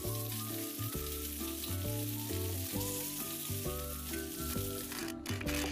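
Rice noodles sizzling as they deep-fry in hot oil in a perforated strainer ladle, with hot oil ladled over them to set the nest shape. The sizzle drops out about five seconds in.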